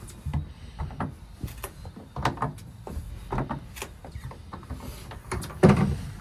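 A boat's flush deck storage hatch being unlatched and lifted open: scattered small clicks and knocks from the latch and lid, then the loudest knock near the end as the lid swings up.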